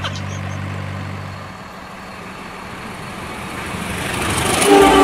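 Dump truck engine running with a steady low hum that fades out about a second and a half in. A train's rumble then builds, and its horn starts to sound just at the end.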